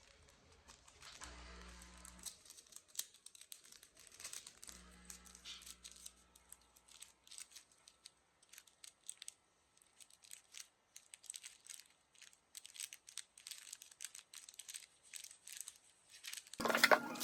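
Quiet handling noises: rustling and crinkling with many small irregular clicks, and two short low hums in the first half. A much louder sound starts just before the end.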